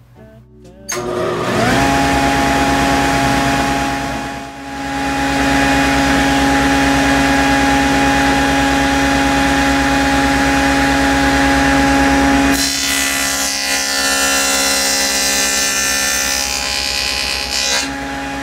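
Table saw with a stacked dado cutter starting up about a second in, the pitch rising as it spins up, then running at speed. From about two-thirds of the way through it cuts a dado in a piece of scrap plywood for a test cut: a louder, harsher cutting noise, with the motor pitch sagging slightly under load. Near the end it runs free again.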